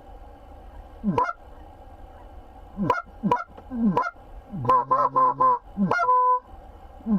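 Geese honking: a string of short calls that break upward in pitch, a quick run of calls a little past the middle, and a couple of longer held notes near the end.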